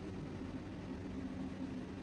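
A motor running steadily, with a low hum under an even hiss.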